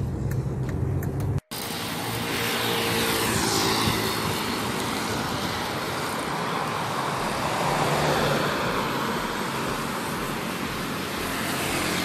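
Steady low drive hum from inside a moving car for about a second and a half, then after a sudden cut, road traffic noise as vehicles pass by close, one with a falling pitch a couple of seconds after the cut.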